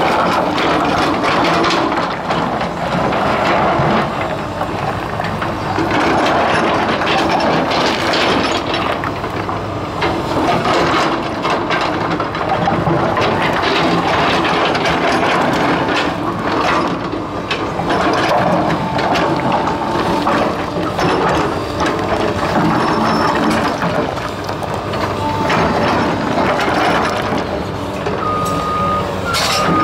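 Komatsu PC220 hydraulic excavator's diesel engine running under load while its bucket digs into and drags rocks down a rock pile, with stones clattering and knocking continuously.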